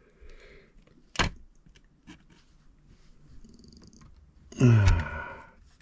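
A sharp click about a second in, then near the end a short voiced sound that falls in pitch.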